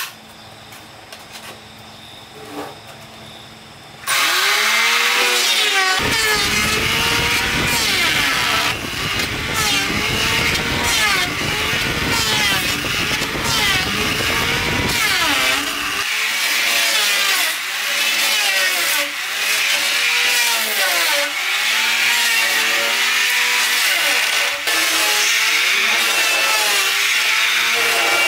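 Corded electric hand planer starting up about four seconds in, then running loudly in repeated passes over a hardwood plank, its whine rising and falling in pitch about once a second with each stroke.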